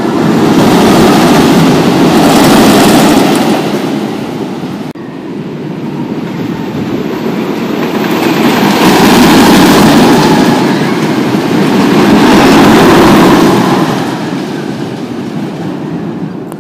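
Roller coaster train rumbling along its track, swelling and fading twice, with an abrupt break about five seconds in.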